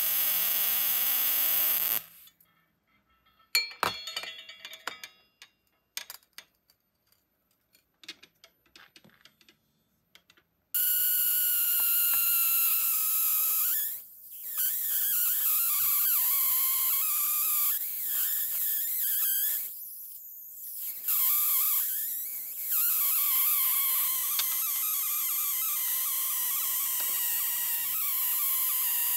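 Flyback-transformer high-voltage generator running with a steady hiss and wavering whining tones. It cuts out about two seconds in, leaving a few faint handling clicks. It starts again about eleven seconds in and runs on, dipping briefly twice.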